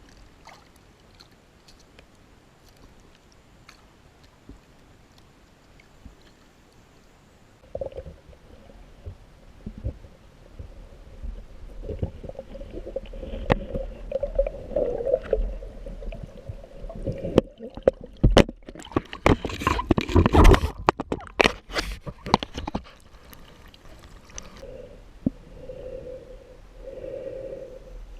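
Muffled underwater gurgling and water movement from a diver swimming in a river. It is faint at first, then grows into a low churning rumble, with a loud stretch of knocks and splashing about two-thirds of the way through.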